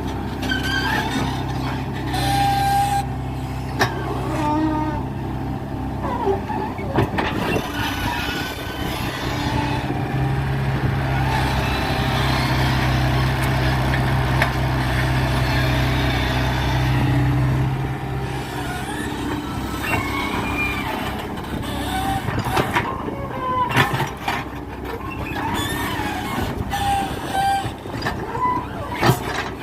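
Hydraulic excavator's diesel engine running steadily, working harder for several seconds in the middle as the hydraulics take load. Whining and squealing from the hydraulics and moving steel parts run throughout, with a few sharp metallic knocks.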